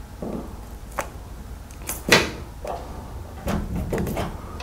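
Handling noises of masking tape being rolled and pressed into a car's door gap: scattered small clicks and knocks, with one louder scrape about two seconds in.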